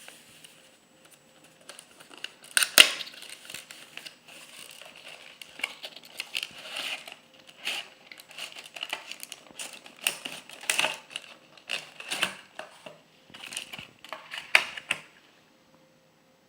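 Product packaging being handled and opened by hand: irregular crinkling and rustling with sharp clicks and knocks, the loudest knock about three seconds in and another strong one near the end. It stops about a second before the end.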